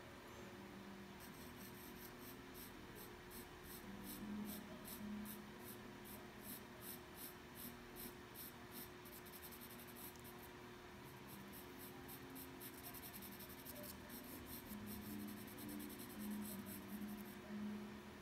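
A white pencil scratching on toned drawing paper in quick, repeated short strokes, about three a second. The strokes pause briefly about halfway through, then resume. The sound is faint.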